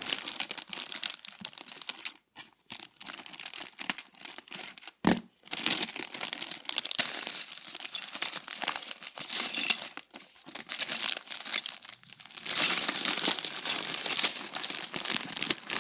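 Clear plastic polybag of Lego pieces crinkling and crackling as it is handled and pulled open, with one sharp knock about five seconds in and denser, louder crinkling over the last few seconds.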